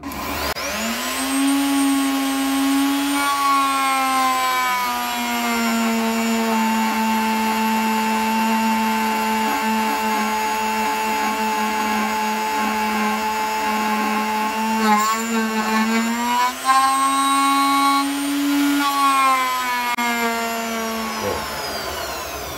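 High-speed electric milling spindle starting up and cutting the aluminium vanes of a jet-engine diffuser, with a steady high whine. Its pitch sags while the cutter is in the cut and rises again when it is free, with a few short rattles about two-thirds of the way through. It is switched off and winds down near the end.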